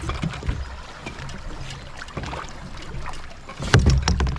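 Kayak paddling sounds: paddle strokes in the water and knocks against the hull over a low rumble, with a louder cluster of knocks near the end.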